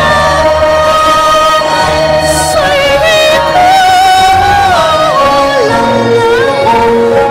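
Cantonese opera singing over live instrumental accompaniment: a wavering, sliding melodic line above steady held instrument tones.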